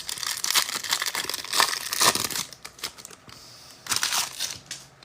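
Trading card pack wrapper crinkling as it is torn open: dense crackling for about two and a half seconds, then a few light handling clicks.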